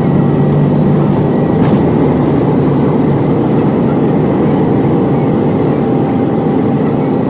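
Airliner's jet engines at takeoff thrust heard inside the cabin: a loud, steady rush of engine and airflow noise as the plane lifts off the runway.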